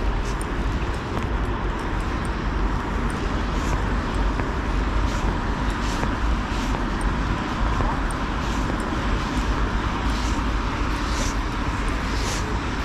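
Steady road-traffic noise with a low wind rumble on the microphone, and faint short hissy ticks recurring every second or so.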